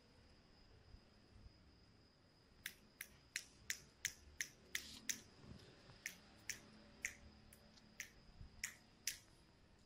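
A run of about fifteen short, sharp clicks, two or three a second, starting about three seconds in and stopping near the end, over a faint steady high-pitched whine.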